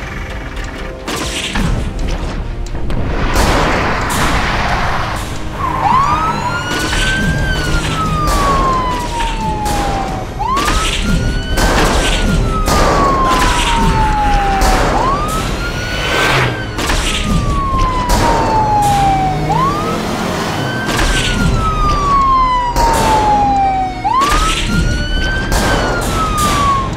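Police car siren wailing, each cycle rising quickly and then falling slowly in pitch, repeating about every four and a half seconds from about six seconds in, over background music with loud percussive hits.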